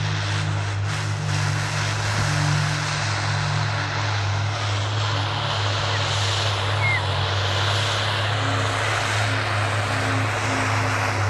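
Tractor's diesel engine running steadily under load while pulling a plough, a constant low drone.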